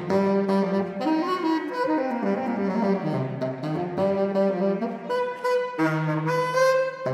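Saxophone ensemble playing live, several saxophones sounding together in harmony, with the notes moving in short, rhythmic phrases.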